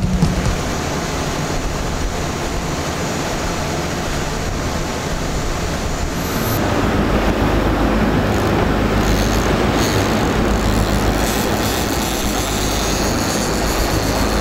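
Sportfishing boat under way at trolling speed: a steady engine drone under the rush of its churning wake. It gets louder about six and a half seconds in.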